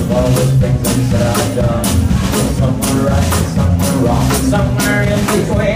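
Live country-rock band playing: a drum kit keeps a steady beat, about two hits a second, under electric and acoustic guitars.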